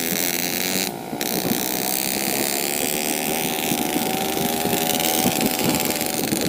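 Yamaha RX King 135's two-stroke single-cylinder engine running as the motorcycle rides, with a brief drop in sound about a second in and some wind on the microphone.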